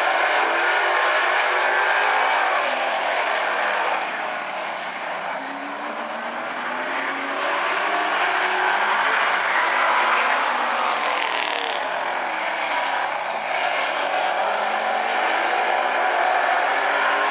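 A pack of street stock race cars running around an oval track, several engines revving at once at different pitches. The sound fades as the pack moves away and swells again as the cars pass close about ten seconds in.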